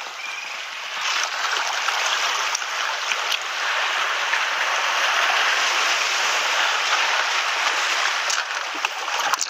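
Seawater washing through the gaps between shoreline boulders, a steady rushing hiss that swells about a second in.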